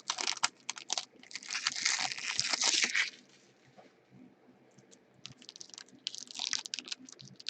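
Foil trading-card pack wrappers crinkling and tearing as packs are ripped open, loud and dense for about three seconds, then a pause and quieter scattered crackles near the end.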